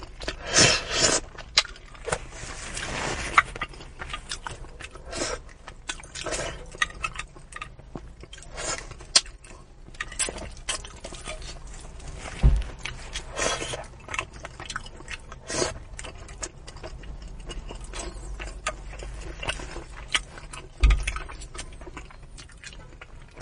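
Close-up eating sounds of a person chewing, sucking and biting at braised fish, with many small wet clicks and smacks. Two low thumps come about halfway through and again near the end.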